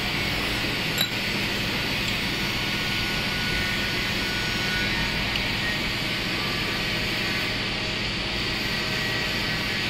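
Steady hum and hiss of workshop machinery running, with one light click about a second in.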